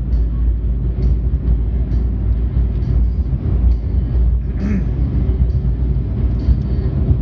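Steady low rumble of a car's road and engine noise heard inside the cabin while cruising, with a brief small sound about four and a half seconds in.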